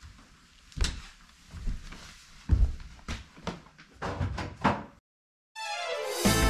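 A string of knocks and thuds from someone moving about and a door being shut, the loudest about two and a half seconds in. After a brief silence, background music starts near the end.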